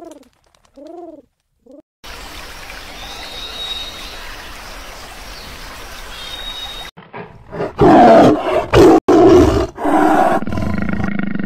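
Pigeons cooing briefly at the start. Then about five seconds of steady hiss. Then a tiger roars and growls loudly in several bursts from about seven seconds in, easing into a steadier growl near the end.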